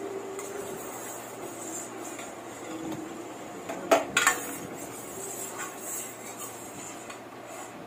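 Steel ladle stirring boiling sugar syrup in a stainless steel kadai, scraping and clinking against the pan, with two loud clinks close together about four seconds in, over the steady bubbling of the syrup.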